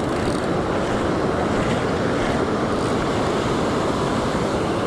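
Ocean surf washing up the beach in a steady rush.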